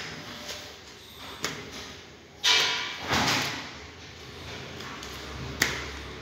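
Irregular knocks and clicks, with a louder brief scraping, sliding noise about two and a half seconds in and a sharp click near the end.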